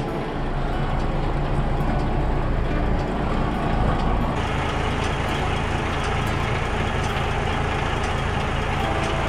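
Diesel engine of a DAF XF truck idling steadily, heard close up. It grows louder and brighter about four seconds in.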